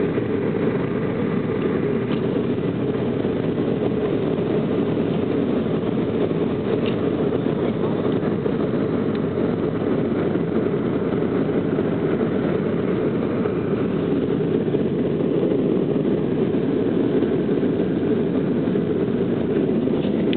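Cabin noise of an Embraer E175 climbing after takeoff: the steady low rumble of its wing-mounted GE CF34-8E turbofan engines and the rush of air past the fuselage, heard from a window seat over the wing.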